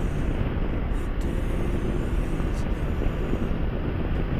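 Steady rush of wind and road noise from a motorcycle cruising at highway speed, heard through a microphone mounted on the bike, with its engine running underneath.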